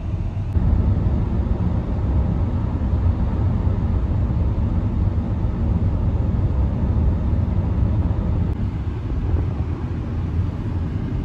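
Steady low rumble of a car driving: tyre and engine noise heard inside the moving car's cabin.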